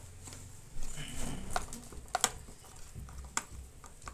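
Scattered small clicks and taps of a nut being hand-tightened onto the axle of a plastic toy ride-on car wheel, the sharpest about two and three and a half seconds in.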